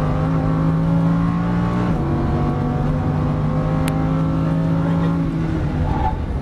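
Lamborghini Huracán V10 accelerating hard, heard from inside the cabin. Its note climbs, drops at an upshift about two seconds in, and climbs again. Near the end the engine note falls away as the throttle closes for braking.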